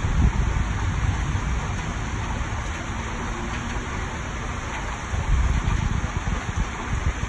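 Heavy rain pouring down: a steady hiss of falling rain, with an uneven low rumble that swells just after the start and again about five seconds in.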